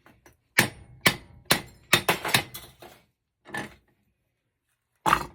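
Hammer blows on a metal heat sink: a quick run of sharp strikes in the first three seconds, then two more spaced a second or more apart, the last near the end. The blows are pounding the copper out of a copper-and-aluminium heat sink.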